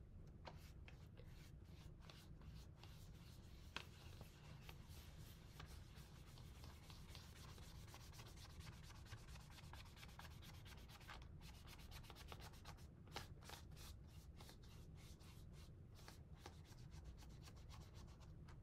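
Faint paintbrush strokes on a paper plate: bristles brushing back and forth in quick, repeated strokes.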